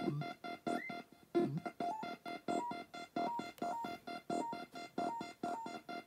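Circuit-bent electronic sounds from a patched Palitoy Merlin handheld game and Sanyo answering-machine remote: a fast, choppy run of electronic beeps, about five a second, mostly on one repeating pitch with a higher note stepping in. A few swooping pitch glides come in the first two seconds.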